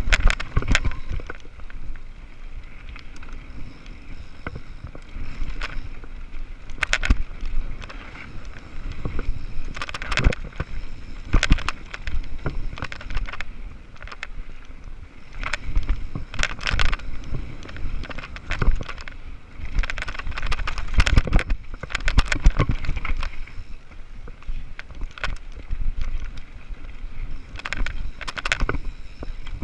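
Mountain bike riding fast down a dirt singletrack: steady wind rush on the microphone and tyre noise, with frequent sharp knocks and rattles as the bike hits bumps.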